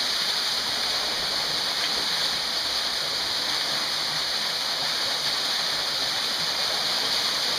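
Small waterfall pouring down a narrow rock canyon: a steady, unbroken rush of falling water with a bright hiss.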